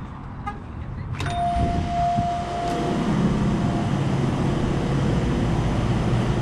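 A glass shop door opens with a click about a second in, setting off an electronic entry chime that holds one steady tone for about two and a half seconds. A steady low hum of kitchen equipment follows and runs on underneath.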